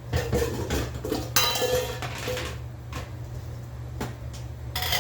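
Kitchen dishes and pans clinking and clattering as they are handled, with a longer ringing rattle about a second and a half in and another clatter near the end.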